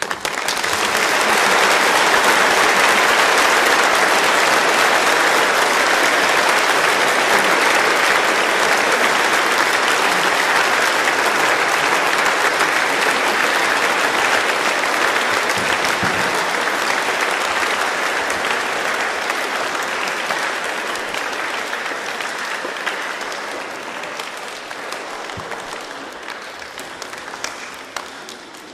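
Congregation applauding: a long round of clapping that starts suddenly, holds steady, then slowly dies away over the last several seconds.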